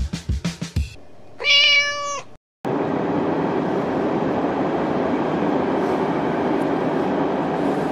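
A drum beat that stops within the first second, then a single cat meow about a second long, the loudest sound here. After a brief gap, a steady rushing noise runs on.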